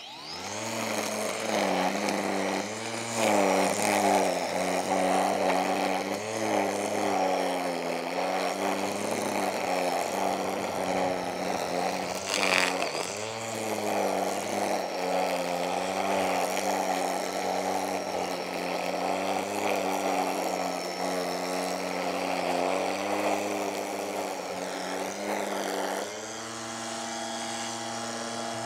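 A small engine running hard, its pitch sagging and recovering every few seconds as it takes load. About 26 s in it gives way to a smoother, steadier hum.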